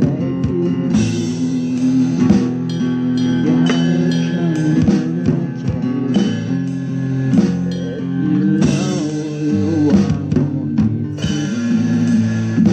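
Music: a rock song led by guitar, with drums and bass.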